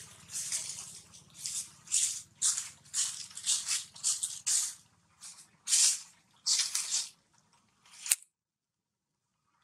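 Short, dry rustling bursts, about two a second, with a single sharp click about eight seconds in.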